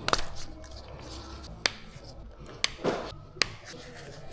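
Four or five sharp, separate clicks and taps of hand tools and metal parts being handled, with a brief scraping rustle a little under three seconds in.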